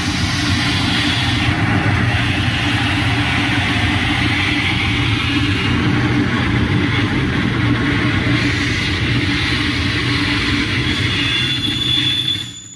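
Live harsh noise performance through a PA: a loud, dense wall of distorted electronic noise over a steady low drone. It drops away sharply near the end.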